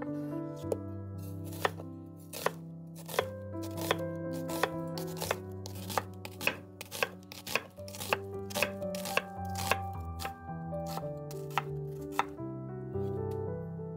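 A kitchen knife chopping on a cutting board in irregular strokes about twice a second, stopping about twelve seconds in, over soft background piano music.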